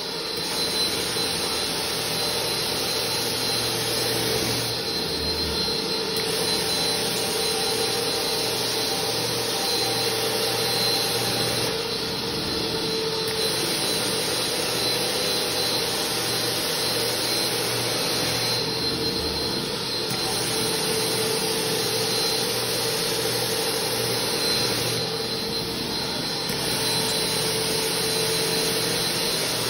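Portable carpet-extraction setup (Air Hog vacuum with a Water Otter solution pump) running steadily while the wand is drawn across wet carpet, sucking up rinse water. The suction drone shifts briefly about every six or seven seconds as each stroke begins.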